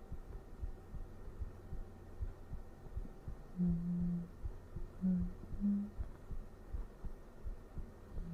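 A man's heartbeat thumping steadily, with a few soft, low hummed lullaby notes coming in from about three and a half seconds.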